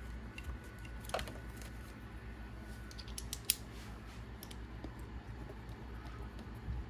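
Scattered small clicks and ticks of hand tools and small metal parts being handled, with the sharpest click about three and a half seconds in, over a low steady hum.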